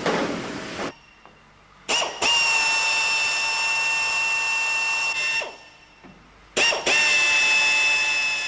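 Hand-held drill boring holes in an aircraft's aluminium skin. It runs twice for a few seconds at a time, each run a steady high whine that starts with a short burst, and the first winds down as the bit stops.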